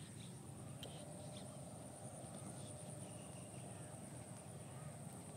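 Faint wetland ambience: a steady high-pitched insect drone with scattered short bird chirps over a low rumble.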